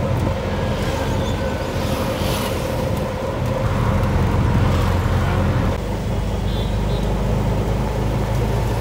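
Auto-rickshaw's small engine running steadily with road and traffic noise, heard from inside its open-sided cabin while it drives along.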